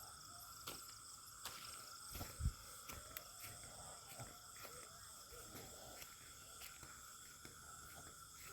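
Faint insect chorus: several steady high trills at different pitches running together, with a few soft clicks and a brief low thump about two and a half seconds in.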